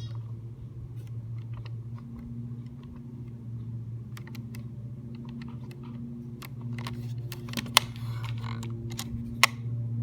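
Clicks and taps from handling a plastic toy alarm clock and pressing its buttons, over a steady low electrical hum. The clicking grows busier partway through, with two sharper clicks near the end.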